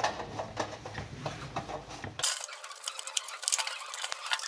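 Irregular light metallic clicks and rattles of an electric radiant heater's wire guard grille and sheet-metal casing being handled.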